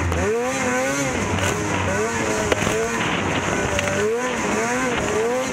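Lynx RS racing snowmobile's engine heard from on board, revving up and down again and again as the throttle is worked over the track, with a single sharp knock about two and a half seconds in.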